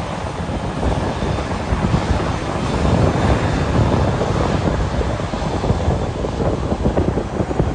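Wind buffeting the microphone with a rough low rumble, over the steady jet noise of a twin-engine Airbus A330 airliner on final approach with its landing gear down.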